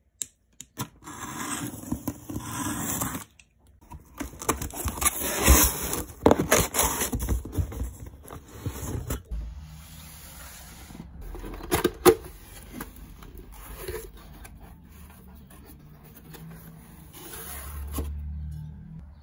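Packing tape being torn off a cardboard box and the box opened: loud tearing and scraping of tape and cardboard for the first several seconds, then quieter rustling of cardboard flaps and inserts, with a sharp click about twelve seconds in.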